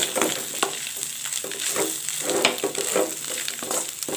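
Metal spatula scraping and knocking against a metal pan, about two strokes a second, stirring crumbled fish in oil over a steady sizzle.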